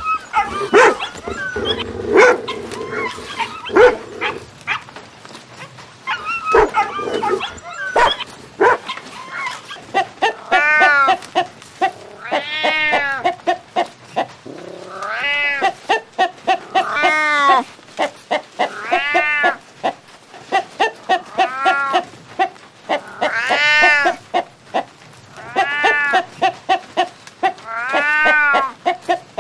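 Dogs whining and barking for the first several seconds. Then a hen cackling: runs of quick short clucks, each ending in a loud rising-and-falling squawk, repeating about every two seconds.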